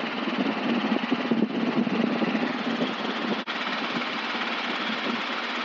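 Robinson R22 helicopter in low forward flight, heard inside the cabin: the steady, rapidly pulsing drone of its piston engine and rotors, with a brief dropout about three and a half seconds in.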